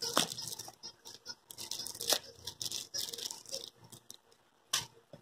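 A dog chewing and gnawing on a toy, making irregular scratchy rustling and scattered sharp clicks. The loudest click comes about two seconds in and another near the end.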